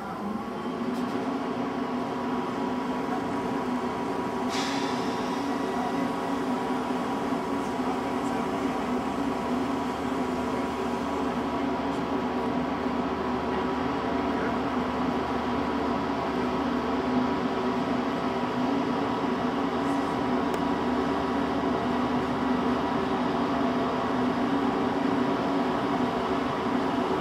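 SNCF TGV high-speed trainset standing at the platform, its onboard equipment giving a steady hum with several held tones. A brief click sounds about four seconds in.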